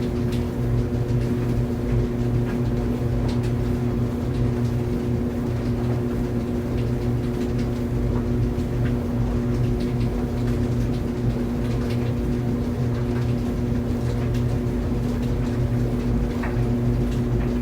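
Tumble dryer running: a steady motor hum and low drum rumble, with faint light ticks scattered through it.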